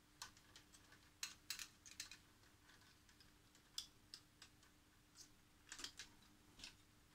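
Quiet, irregular small clicks and taps of ribbon cables and plastic connectors being handled and pushed into place inside an ICOM IC-756 Pro III transceiver's open chassis, over a faint steady hum.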